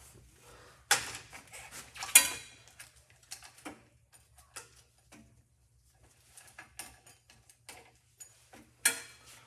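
Metal clanks and clicks of bicycle parts being handled while a drive wheel is fitted into the frame: a sharp knock about a second in, a louder ringing clank just after two seconds, scattered lighter clicks, and another sharp knock near the end.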